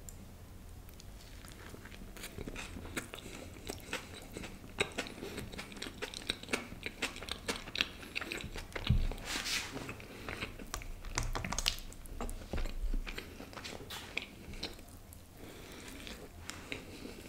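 Close-miked eating sounds: a man biting into and chewing a soft baby pav bun with pav bhaji, with many small wet mouth clicks and smacks.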